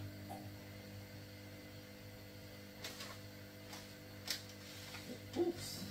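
Steady low electrical hum with a few light clicks and taps over it, the loudest near the end.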